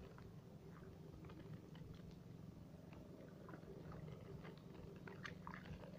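Faint, close handling sounds of rice seedlings and wet paddy mud: soft clicks, rustles and small splashes, thickening about two-thirds of the way in, over a steady low hum.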